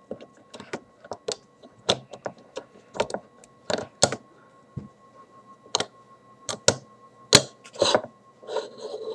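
Glide clamp of a Prince Neos 1000 racquet stringing machine being locked and pushed along its metal glide rail: irregular sharp clicks and knocks as it catches instead of sliding smoothly, a sign of the clamp binding on the rail.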